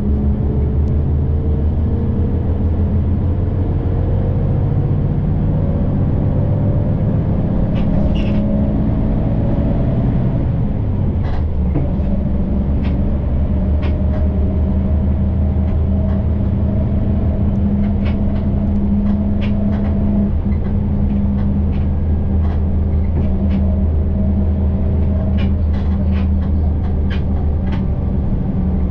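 City bus in motion, heard from inside the cabin: a steady low engine and road rumble, with a whine that slowly climbs in pitch, drops about ten seconds in, then climbs again. Light rattles and clicks come and go throughout.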